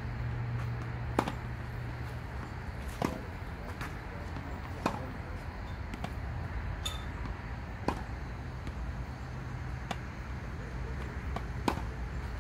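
Tennis rally: rackets striking the ball with sharp pops about every two seconds, with fainter clicks between them, over a steady low hum.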